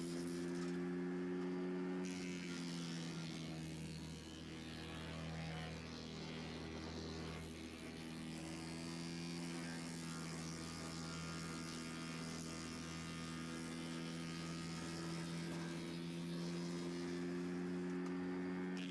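Engine of a Vermeer BC600XL wood chipper running steadily. Its pitch dips a little about two seconds in and comes back up near the end.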